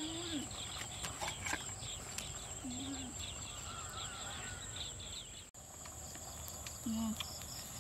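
Dusk insect chorus: a steady high-pitched drone with rapid repeated chirping over it. A few short, low, level-pitched animal calls come at the start, about three seconds in and near the end.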